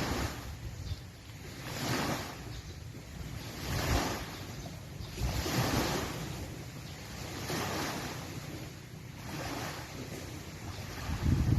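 Small lake waves washing onto the shore in swells about every two seconds, with wind rumbling on the microphone.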